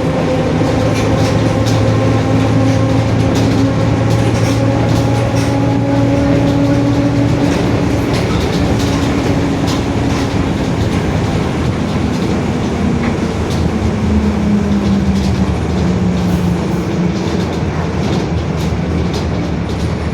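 Mercedes-Benz OF-1721 city bus under way, its rear differential droning very loudly: a steady gear whine that holds its pitch, then falls in pitch about two-thirds of the way through, over continuous road rumble and small rattles.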